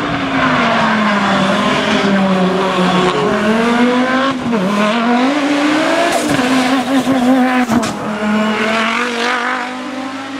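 Audi S2 hillclimb car's inline five-cylinder engine at full race effort. The pitch falls and climbs repeatedly, with a sharp dip about four and a half seconds in and a brief break near eight seconds.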